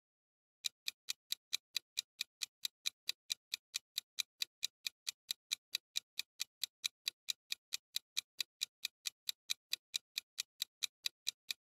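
Clock-ticking sound effect for a quiz countdown timer: a steady run of sharp ticks, about four a second, starting under a second in.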